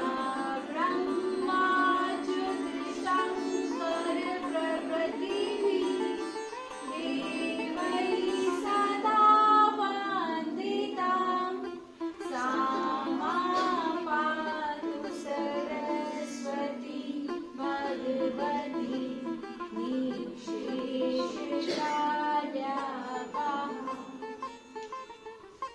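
Indian devotional music: a woman's voice singing a prayer over sitar and a steady drone, with a short break about halfway through.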